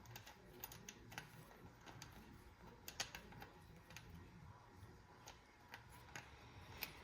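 Near silence broken by faint, light clicks at irregular spacing, about one a second.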